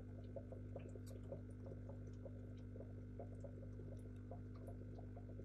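Faint steady low hum of running aquarium equipment, with scattered faint small ticks.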